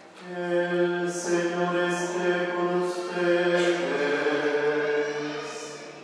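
Voices singing a slow chant on one melody line, without instruments, holding long steady notes that step down in pitch a little past halfway.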